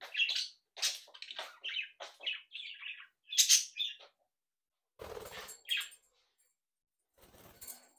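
Budgerigars chirping and warbling in short, quick calls for about four seconds. Two brief noisy rustles follow, about five and seven seconds in.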